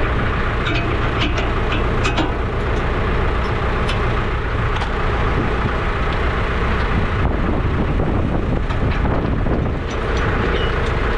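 Tractor engine running steadily, with scattered sharp metallic clicks and clanks over it, most of them in the first couple of seconds.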